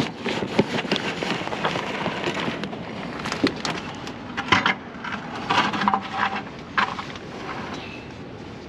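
Plastic buckets and a drain tub being shifted and set down by hand: a run of knocks, scrapes and clatter, busiest between about three and seven seconds in, then quieter.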